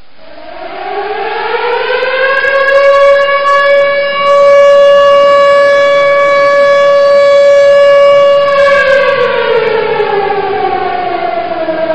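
Civil defense air-raid siren sounding an atomic attack alarm. It winds up in pitch over about three seconds, holds one steady wailing tone, then starts winding down about three-quarters of the way through.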